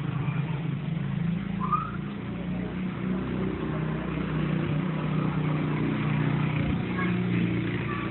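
Steady low hum over a noisy background, with a brief faint rising chirp about two seconds in.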